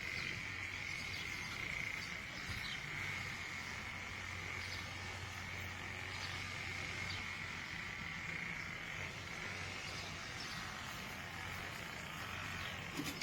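Outdoor ambience: a steady, high-pitched animal chorus with a continuous low hum underneath.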